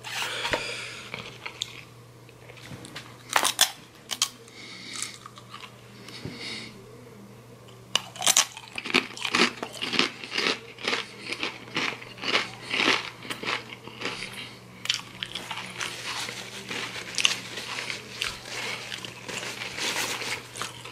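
Close-up crunching and chewing of Takis rolled tortilla chips coated in hot sauce. A few scattered crunches at first, then steady rapid crunching from about eight seconds in.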